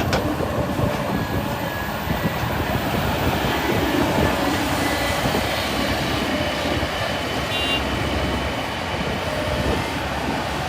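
Excavator diesel engines running steadily: a continuous mechanical rumble with hiss, and a brief click at the very start.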